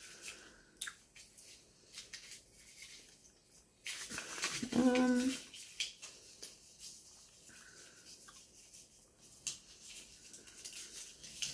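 Light rustling, tapping and small clicks of paper being handled. A short hummed note from a voice about five seconds in is the loudest sound.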